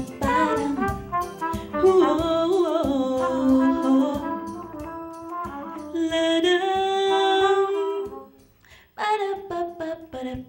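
A woman singing a soulful melody into a microphone, with a trumpet playing long held notes alongside. The music breaks off for a moment near the end, then the voice comes back.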